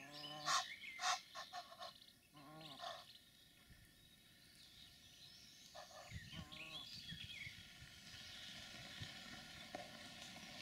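Egyptian geese giving short hoarse calls, a few in the first three seconds and more about six seconds in, with some sharp knocks near the start. A faint low rumble fills the later part.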